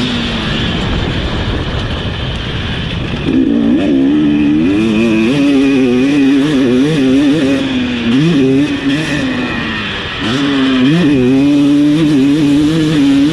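Husqvarna TC250 two-stroke motocross engine at full race pace, its note climbing and dropping with throttle and gear changes. For the first three seconds or so it is mostly a rushing noise with no clear engine note, then the engine comes back on strong, eases briefly near the end and rises again.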